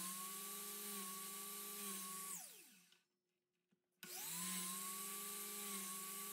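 DeWalt miter saw motor running with a steady whine while the blade is lowered to cut shallow relief grooves into a small wooden block. It winds down about two and a half seconds in, then starts up again about four seconds in for the next groove cut.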